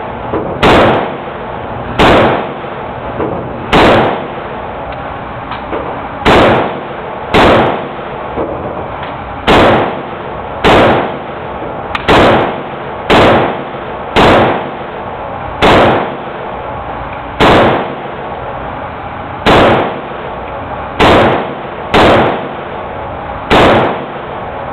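Romanian WASR AK-pattern rifle fired semi-automatically, about sixteen single shots spaced one to two and a half seconds apart, each echoing in the indoor range, over a steady background noise.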